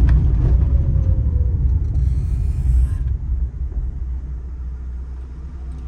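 Steady low rumble of a road vehicle on the move, with a brief hiss about two seconds in; the rumble eases off toward the end.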